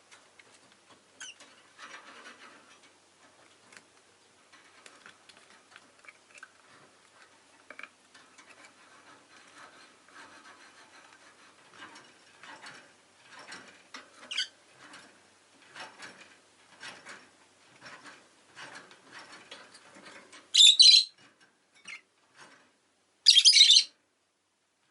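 Rosy-faced lovebird giving two loud, shrill calls near the end, each about half a second long. Before them, a long stretch of faint scratching and clicking.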